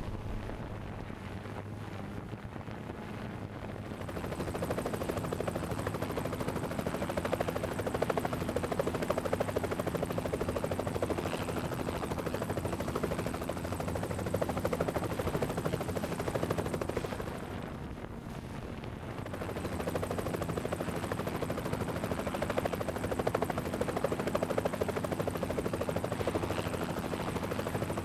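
Quadcopter drone's motors and propellers humming steadily in flight, heard from the drone's own onboard camera. The hum is softer for the first few seconds and drops again briefly a little past the middle.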